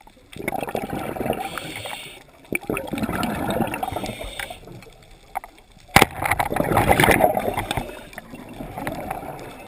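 Underwater water noise picked up through a diver's camera housing: muffled rushing and gurgling that swells and fades several times, with one sharp click about six seconds in.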